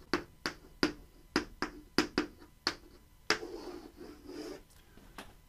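Chalk writing on a blackboard: a quick run of sharp taps and clicks as letters are written, about ten in the first three seconds, then a softer scraping stroke for about a second.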